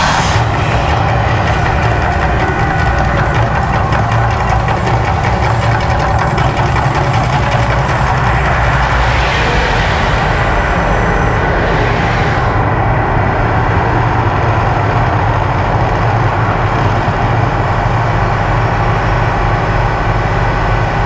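Loud, steady low rumble of the Mirage volcano show, with two hissing surges about nine and twelve seconds in.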